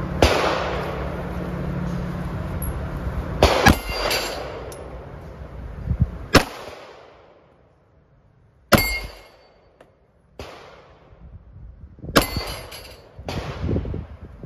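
Single shots from a 9mm Glock 48 pistol, fired one at a time a second to a few seconds apart. Some are followed by a short metallic ring.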